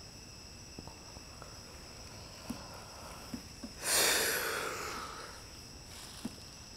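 A steady, shrill chorus of night insects such as crickets. About four seconds in comes a loud breathy rush that fades away over about a second.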